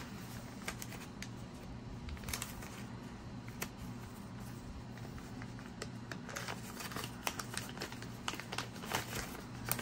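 Soft crinkling and scattered light clicks of a clear plastic coin sleeve being handled as a coin is slid into it and the sleeve folded, the clicks coming more often near the end. A steady low hum runs underneath.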